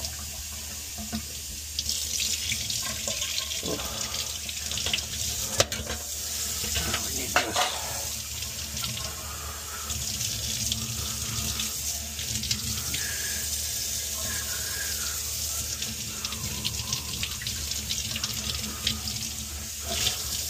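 Kitchen faucet running into a stainless steel sink, the stream splashing through a boiler's plastic condensate trap as it is rinsed out, with a couple of sharp knocks about five and a half and seven and a half seconds in.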